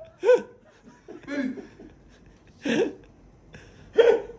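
People chuckling and laughing in four short, separate bursts about a second apart.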